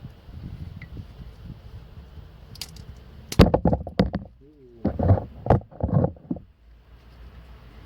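Metal clunks and rattles of a brake caliper being handled and offered up over the disc and new pads. There is a burst of knocks about three and a half seconds in, and another cluster between five and six seconds.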